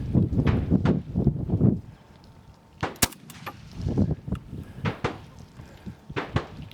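Rifle shots on a practical-shooting range: one loud sharp shot about three seconds in, with several fainter shots or impacts spaced irregularly after it. A dense low rumble fills the first two seconds.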